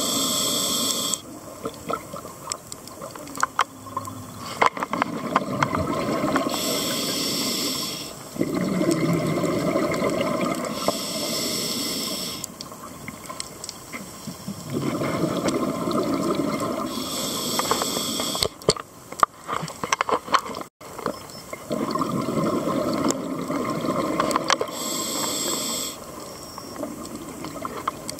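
Scuba diver breathing through a demand regulator: a short hissing inhalation of about a second and a half, then a longer bubbling exhalation, repeating about five times at a slow, even pace. A few sharp clicks come about two-thirds of the way through.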